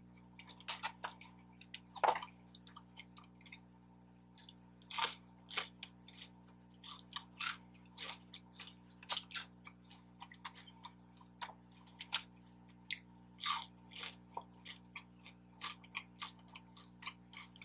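A person chewing and biting into fast food close to the microphone: irregular short clicks and smacks of eating, several a second with brief gaps.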